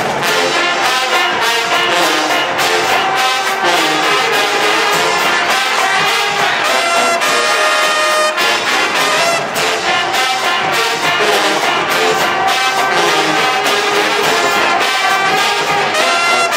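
HBCU marching band's brass section, with trombones and trumpets, playing loudly over a steady drum beat.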